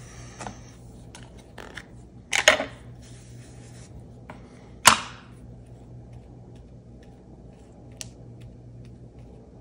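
Plastic ink pad cases being picked up, opened and set down on a craft mat, with light taps, a clatter about two and a half seconds in and one sharp click about five seconds in.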